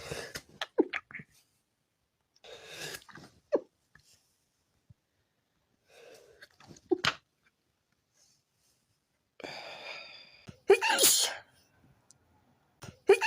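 A person sneezing several times from a tickly nose. Breathy intakes build up before sharp sneezes. The loudest sneeze comes about eleven seconds in, and another follows right at the end.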